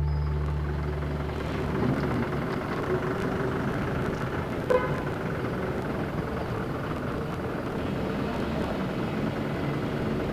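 Steady traffic noise from vehicles, with one short sharp sound about five seconds in.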